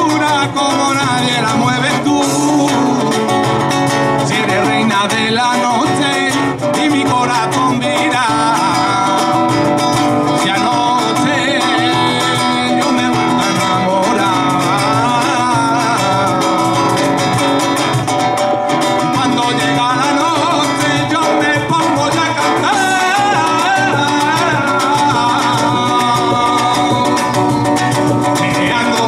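Live flamenco song: a male singer's ornamented voice over a strummed and plucked flamenco guitar.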